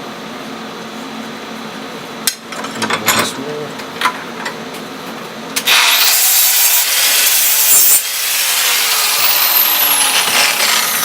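A few knocks and clicks, then about six seconds in a steady, harsh rubbing hiss of abrasive work on the aluminium workpiece that runs on, with a faint falling whine high up.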